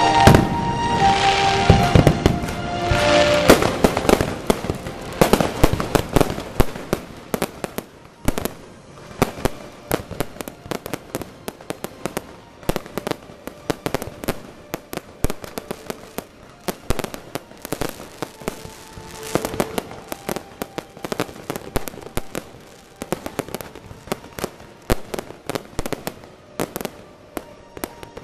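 Aerial fireworks bursting: a dense run of sharp bangs and crackles, heaviest and loudest over the first six seconds, then thinner crackling with single louder bangs. Music plays under the first few seconds.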